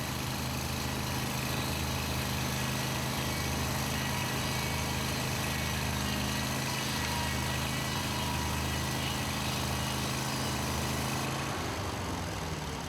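Portable band sawmill running steadily on its engine, then slowing with a falling pitch near the end.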